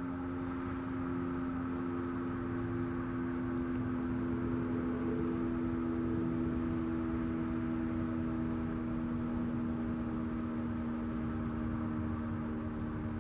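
Sterling M-10 outdoor warning siren sounding a steady tone: two pitches held together, sagging slightly in pitch, over a low rumble.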